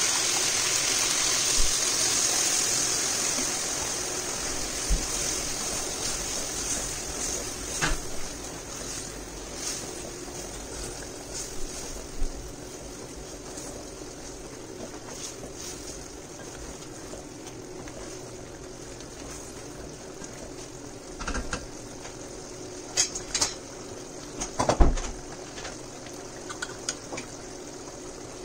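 Stock poured into a hot pot of sautéed vegetables, a loud hiss that fades over the first few seconds into a quiet simmer. Scattered clicks and knocks of cooking utensils against the pot follow, loudest about 25 seconds in.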